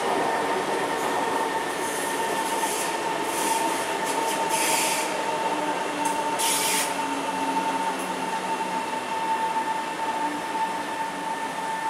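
SMRT old-generation (C151) metro train running on elevated track, with a steady high-pitched whine over the rumble of the cars. Two short hisses come about five and seven seconds in.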